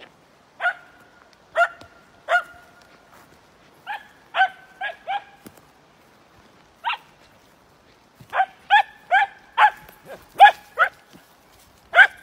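Finnish Spitz barking: about fifteen sharp, high-pitched barks in irregular runs, a few at a time with short pauses between. The barks come faster and louder in the second half.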